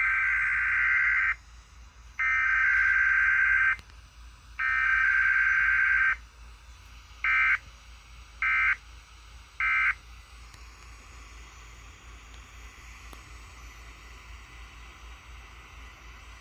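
Emergency Alert System SAME digital data bursts: three header bursts of harsh, warbling two-tone data, each about a second and a half long with a short gap between them, then three brief end-of-message bursts ending about ten seconds in. After that there is only faint radio hiss.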